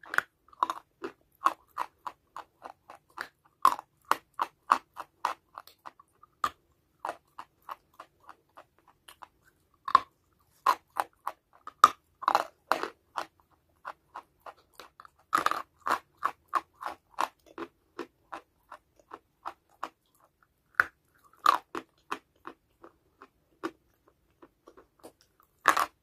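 A chunk of white chalky clay being bitten and chewed: runs of short, dry, crisp crunches, several a second, broken by brief pauses, with the loudest bites about ten, twelve and fifteen seconds in.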